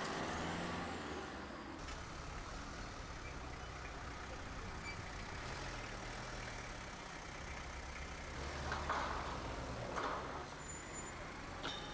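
Street noise dominated by the low, steady running of vehicle engines, with two short louder noises about nine and ten seconds in.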